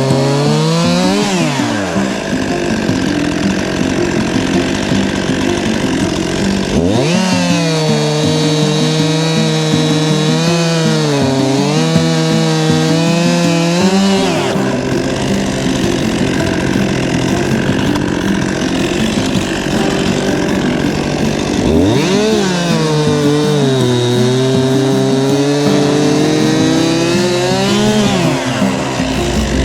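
Stihl two-stroke chainsaw running at high throttle. Twice, about seven and about twenty-two seconds in, its pitch drops and wavers for several seconds as it bogs down under load cutting wood, then rises again as it frees up.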